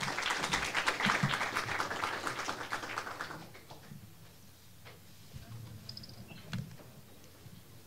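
Audience applauding, dying away about three and a half seconds in, with a few scattered faint clicks after.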